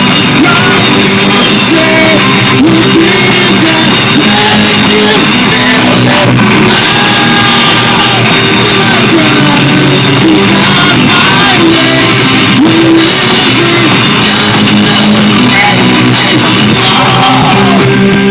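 Very loud live rock band playing, with singing over the instruments.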